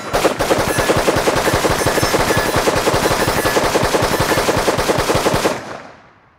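Stag 15 Tactical AR-15 rifle firing a rapid semi-automatic string, about five shots a second, as the magazine is emptied as fast as the trigger can be pulled. The shooting stops about five and a half seconds in, and the echo dies away.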